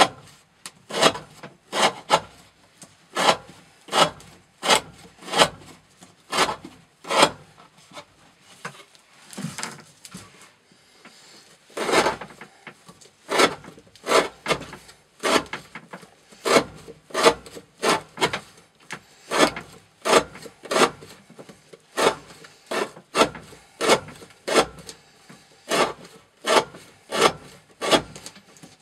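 Knife blade slicing through thick rope, one cut after another in a steady rhythm of about one to two cuts a second, with a short break about ten seconds in.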